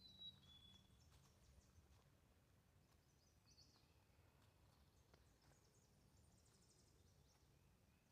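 Faint wild songbirds calling: a short falling whistle at the start, a few chirps near the middle and a thin high trill later on.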